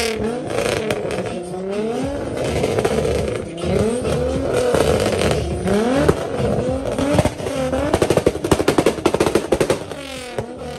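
A modified car engine revved repeatedly, its pitch climbing and falling. About eight seconds in comes a rapid string of exhaust pops and crackles.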